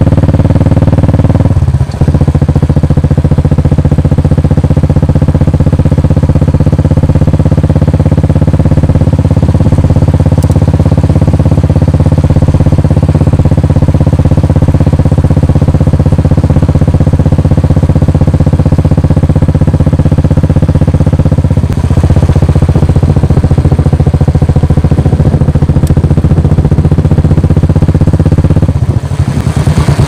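Royal Enfield 350 single-cylinder motorcycle fitted with a SANS Flat Head Black aftermarket silencer, running under way with a clear mix of bass and thump from the exhaust that is not harsh and has no popping. The engine note breaks briefly a few times as the bike is shifted up through the gears to fourth.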